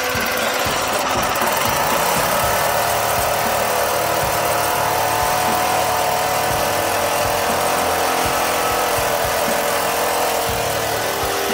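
Small gasoline engine of a walk-behind lawn edger running steadily just after starting, its pitch rising slightly in the first couple of seconds and then holding.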